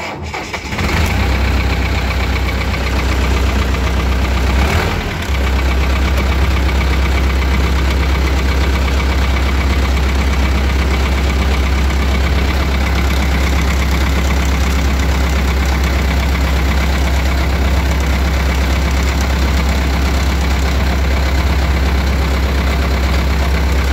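Belarus T-40A tractor's air-cooled diesel engine, just started, running steadily at idle with a deep, even note. It dips briefly about five seconds in.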